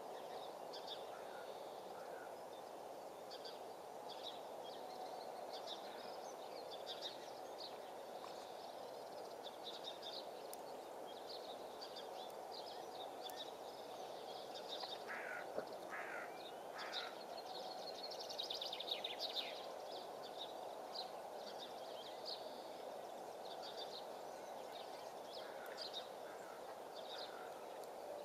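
Small birds chirping and singing in short, high calls throughout, with a quick trill about nineteen seconds in, over a steady background noise.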